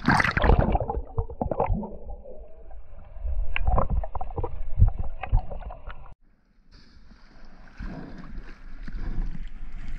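Sea water splashing as the microphone plunges under the surface, then muffled underwater knocks and gurgling. After a brief dropout, water sloshes and splashes at the surface as a large monkfish is lifted out of the sea.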